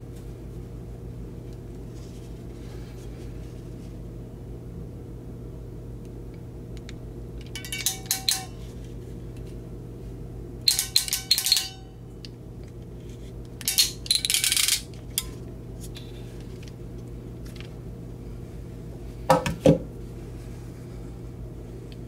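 Ratcheting RJ45 crimp tool (Eclipse QuikThrough) clicking in four short bursts as its handles are squeezed and released, crimping a pass-through modular plug and cutting off the wire ends. A steady low hum runs underneath.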